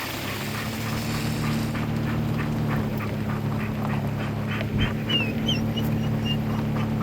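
Car engine and road hum heard inside the cabin, driving slowly over a bumpy dirt road, with a quick run of light clicks and rattles and a few short high squeaks a little past the middle.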